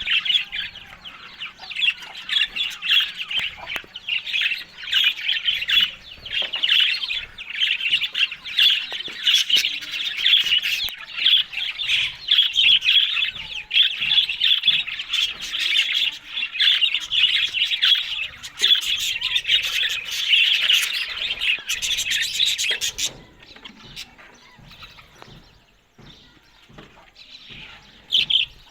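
Budgerigars chattering and warbling in a dense, continuous stream of high chirps and squawks that cuts off suddenly about 23 seconds in, followed by quieter sounds and a few more calls near the end.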